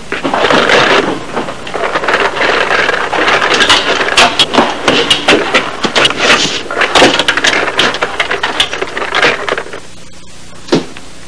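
A scuffle against wood: loud, busy clattering and knocking that stops abruptly about ten seconds in, followed by one sharp knock.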